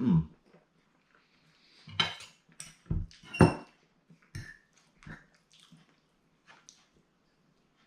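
Cutlery and crockery clinking: a handful of separate knocks and clicks spread over several seconds, one or two ringing briefly.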